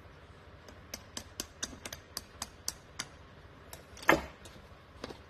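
Light metal clicks from a Honda N600 carburetor's float assembly being worked by hand: a run of about nine evenly spaced ticks, roughly four a second, then one louder knock about four seconds in and a softer one near the end.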